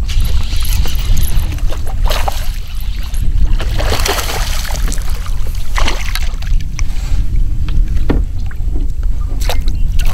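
Wind rumbling on the microphone over water, with short splashes every second or two as a hooked largemouth bass thrashes at the surface beside a kayak. It is netted near the end.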